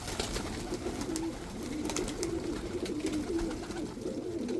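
Domestic pigeons cooing in a loft, several low warbling coos overlapping without a break.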